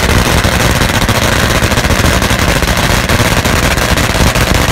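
Drag racing motorcycle engine running loud through open exhaust pipes, a rapid, even train of sharp exhaust cracks over a deep rumble.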